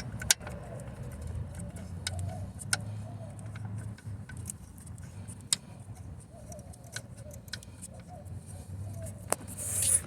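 Scattered metallic clicks and clinks of hand tools on the alternator bolts, over a low background hum that comes and goes.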